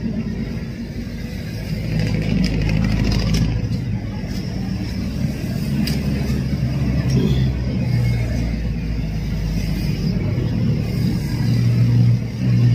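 A vehicle engine running steadily with a low hum.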